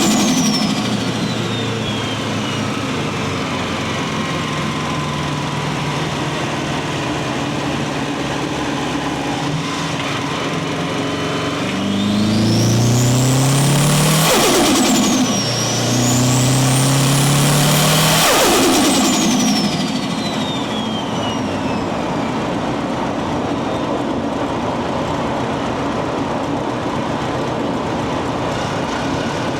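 Subaru WRX turbocharged flat-four engine accelerating hard twice, about twelve and sixteen seconds in, its note climbing with a rising turbo whistle; after each pull the whistle falls away slowly as the throttle closes, and with no blow-off valve the turbo flutters. Otherwise the engine runs steadily at part throttle.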